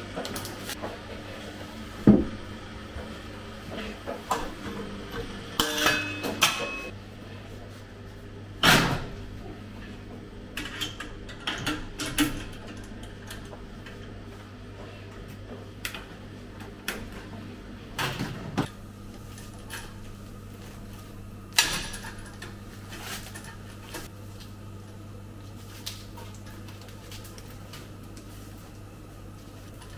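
Commercial kitchen work: dishes, containers and utensils clattering, with scattered sharp knocks as things are set down and cupboards or lids shut, over a steady low hum.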